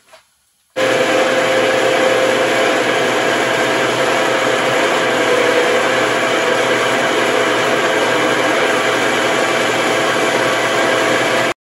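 Horizontal metal-cutting band saw running with its blade cutting into the steel and copper of an electric motor's stator: a loud, steady noise with a hum in it. It starts suddenly about a second in and cuts off sharply just before the end.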